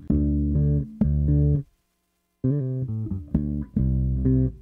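Ibanez miKro GSRM20 four-string short-scale electric bass playing a riff of sustained notes with all pickups on and some treble. It stops briefly about two seconds in, then carries on with all pickups and the tone set to full bass.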